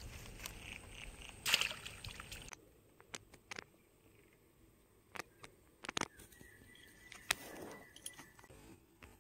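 Handling noise: a mesh net bag and plants rustling, with a louder rustle about a second and a half in. Then quieter, with a few sharp clicks and a thin steady tone for about two seconds near the end.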